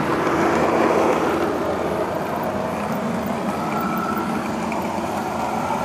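O scale model train running along the track: a steady rumble from its wheels and motor, with a brief faint whine about four seconds in.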